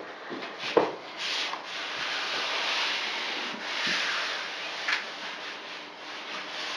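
Hands rubbing and smoothing fiberglass mesh tape flat onto a membrane-coated wall seam: a scratchy rubbing that swells and eases with each stroke, with a couple of brief knocks.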